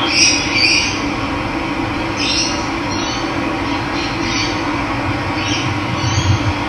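Steady rush of running water, with a bird giving short calls about seven times over it.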